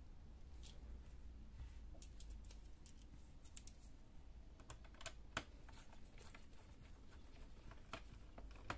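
Faint, scattered small clicks and ticks of a small screwdriver working the hinge screws of a laptop, with gloved hands handling its plastic case; one sharper click comes about five seconds in.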